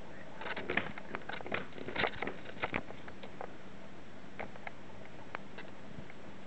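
A quick run of light taps and rustles, busiest in the first three seconds and then a few scattered clicks, as a cat plays with a dangling wand toy.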